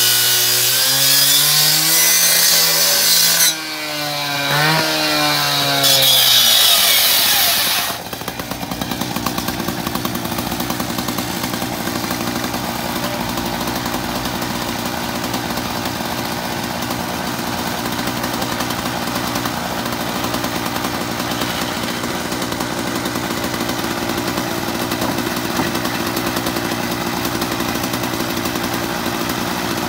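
Gas-powered cut-off rescue saw cutting into a burned truck's hood, its two-stroke engine sagging and picking up again under load with a grinding hiss, cutting off about eight seconds in. A steady engine idle runs on after that.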